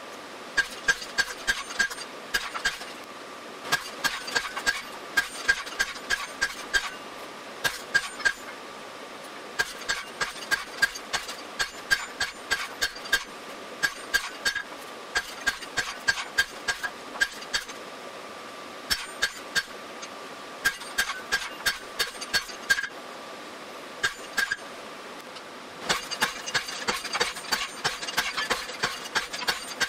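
Hand hammer striking a red-hot steel bar on an anvil, in runs of quick blows with the anvil ringing after each strike, broken by a few pauses of one to three seconds. A steady hum runs underneath.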